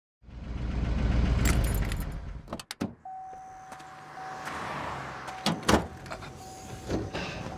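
A pickup truck's low engine rumble for the first two seconds or so, then two sharp clicks of a door. A steady electronic warning chime follows, broken by short gaps, while the truck bed cover is handled with several sharp knocks and clunks.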